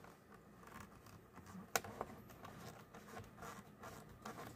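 Faint handling sounds of a panel being pressed and fitted into a computer case frame by hand: light scrapes and ticks, with one sharp click just under two seconds in.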